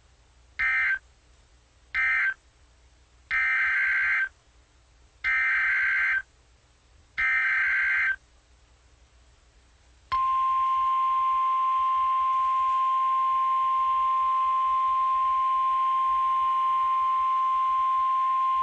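Emergency Alert System SAME data tones: two brief raspy blasts, the end-of-message code of the previous alert, then three longer blasts, the header of the next alert. About ten seconds in, the steady 1050 Hz NOAA Weather Radio warning alarm tone starts and holds.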